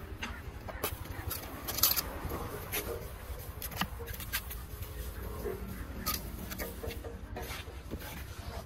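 A steel trowel and a wooden straightedge scraping and spreading a gritty sand-and-cement mix over a concrete slab, in irregular strokes with a few sharper scrapes.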